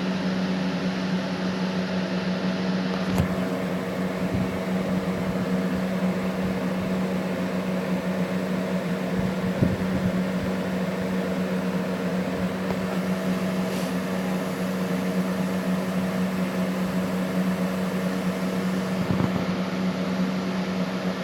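A steady low hum with hiss behind it, with a few faint clicks.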